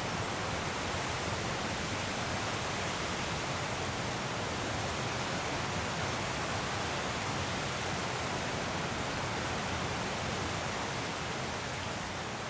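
Waterfall: a steady, even rush of falling water with no breaks or other events.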